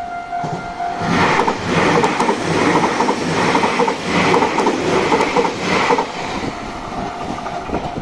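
A level-crossing warning bell rings steadily, then is drowned out about a second in as a Tobu 60000 series electric train passes close by. Its wheels clatter over the rail joints in a regular rhythm, and the clatter dies away after about six seconds.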